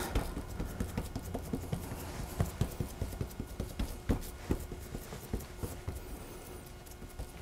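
Wet hands patting and pressing a sticky biscotti dough log flat on a wooden board: many soft, irregular pats and sticky smacks.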